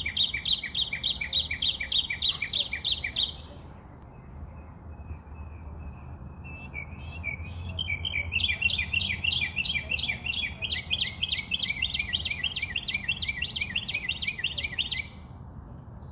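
A songbird singing fast runs of repeated chirps, about five or six a second: one run stops about three seconds in, and another runs from about eight seconds to about fifteen, with softer scattered calls and a short chatter between them.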